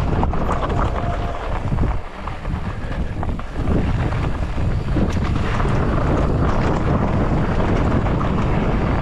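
Wind rushing over an action camera's microphone on a moving mountain bike, mixed with the rumble and scattered clicks of the bike on a rocky dirt trail. The rush eases for about a second and a half about two seconds in.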